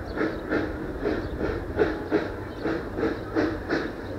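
UP 119 replica steam locomotive working under steam, its exhaust chuffing in an even rhythm of about three beats a second.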